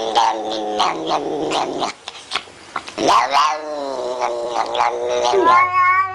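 Domestic cat yowling: long, drawn-out wavering calls that bend up and down in pitch, with a short lull about two seconds in. Near the end a steadier held call begins with a low hum under it.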